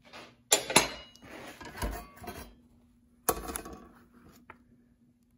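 Two steel circular saw blades clanking and scraping against each other and the saw's metal table as they are laid side by side and lifted: two sharp clanks about half a second in and another a little after three seconds.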